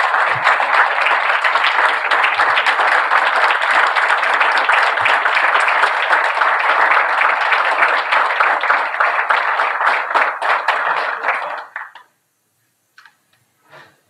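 Audience applauding, a loud, dense clapping that stops abruptly about twelve seconds in, followed by a couple of stray claps.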